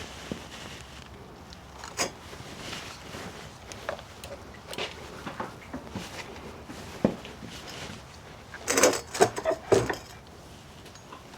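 Scattered knocks and clicks of hard objects being handled and set down, with a short run of louder clattering knocks about nine seconds in.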